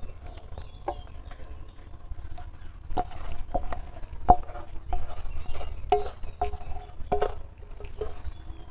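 A metal spoon knocking and scraping against a steel bowl, a string of irregular clinks with short metallic rings, as the spiced potato-and-egg mixture is scooped out.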